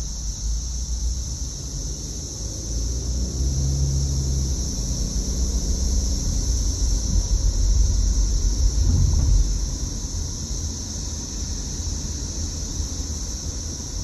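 A dense chorus of periodical cicadas, one steady high buzz without a break, heard from inside a moving car. The car's low road and engine rumble swells for several seconds in the middle and is louder than the chorus there.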